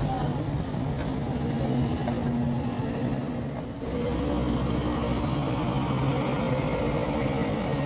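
A motor engine running steadily, with a brief dip in loudness about halfway through.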